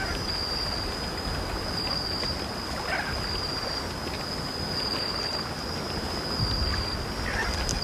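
Outdoor ambience: a steady rushing hiss under a continuous high insect drone, with a few faint chirps.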